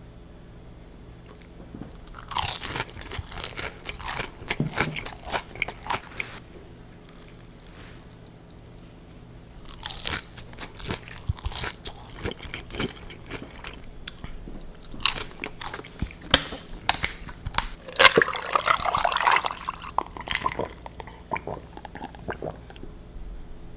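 Close-up bites and chewing of crispy fried mac and cheese balls: crunchy crackling of the fried breading in two spells, loudest about three-quarters of the way through, with quieter chewing between.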